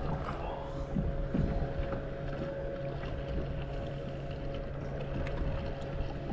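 Water lapping against a kayak's hull, with a steady low hum and a few light knocks about a second in.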